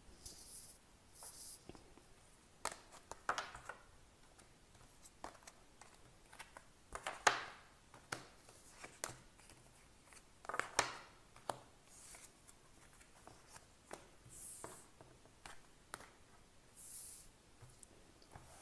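Tarot and oracle cards being gathered up and laid down on a table: soft slides, taps and light clicks of card stock at irregular intervals, with two louder swishes about seven and eleven seconds in.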